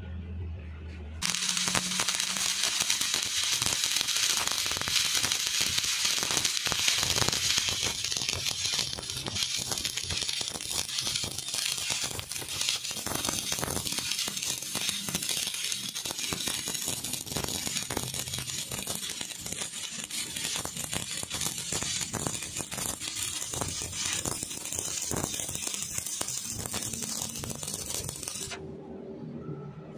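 Stick welding arc crackling and spitting steadily as a second bead is run along a steel joint. It strikes about a second in after a low hum and cuts off sharply shortly before the end.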